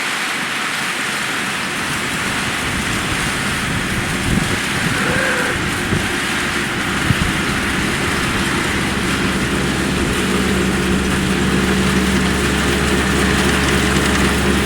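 Yanmar GC333 combine harvester running, a steady mix of engine and threshing machinery noise, with a few short sharp knocks around the middle.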